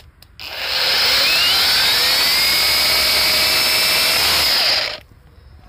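Ryobi XBRH-18 18-volt brushless cordless rotary hammer drilling into concrete with a 10 mm bit. It starts about half a second in with a rising whine as the motor spins up, runs steadily, and stops about five seconds in.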